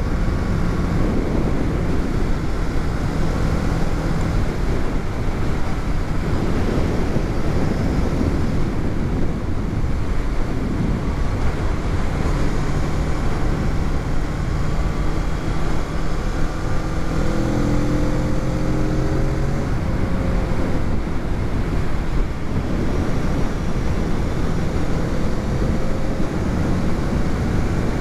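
Riding wind rushing over the helmet-mounted camera's microphone, over the running engine of a Kawasaki Z650, a 649 cc parallel-twin, at road speed. The engine note shifts in pitch with the throttle and climbs in steps about two-thirds of the way through.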